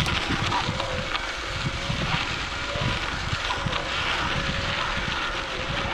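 Wind buffeting the microphone as a bicycle is ridden, with uneven low rumbles from the tyres on a rough dirt track.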